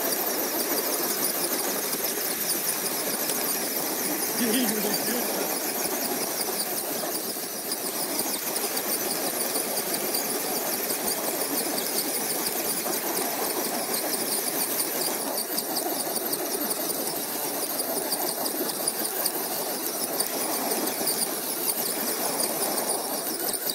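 Electric motors and geared transmissions of two Axial SCX10 RC crawlers whining steadily under load as they pull against each other.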